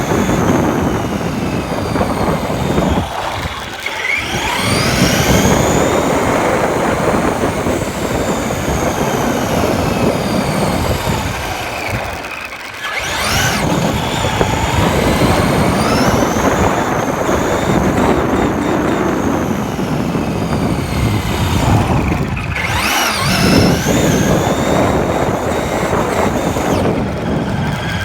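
Traxxas RC truck's electric motor whining up and down in pitch as it speeds up and slows, over a steady rumble and rattle of the truck driving over the ground, heard from a phone mounted on the truck. The noise drops away briefly three times.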